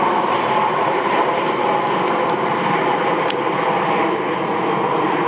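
Airbus A350-900's Rolls-Royce Trent XWB turbofan engines giving a steady jet noise as the airliner climbs out after takeoff. A few faint high ticks sound about two and three seconds in.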